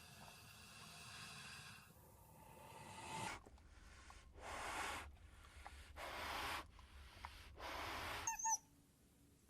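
Faint animal breathing: four breaths about a second and a half apart, with a brief squeak near the end.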